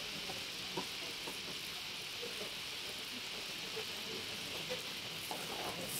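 Beef frying in a thick layer of hot oil in a large kazan: a steady, even sizzle with a few small pops and crackles.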